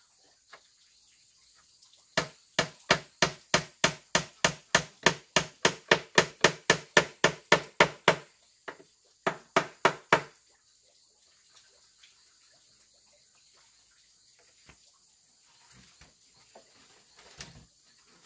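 A tool striking wood in a fast, even rhythm, about three blows a second, each blow ringing briefly: about twenty blows, a short pause, then four more. Insects trill steadily underneath.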